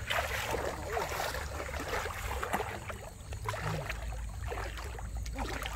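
Shallow water sloshing and splashing around the legs of someone wading, with many small irregular splashes and clicks and a low rumble underneath.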